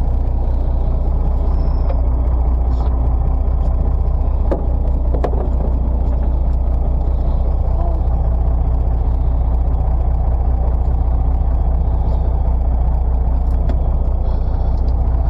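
Fishing boat's engine running steadily, a constant low drone, with a couple of faint clicks about five seconds in.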